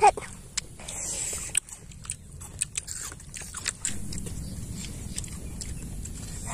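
Star fruit (carambola) being bitten and chewed: crisp crunching with many short, sharp clicks, after one brief loud bump at the very start.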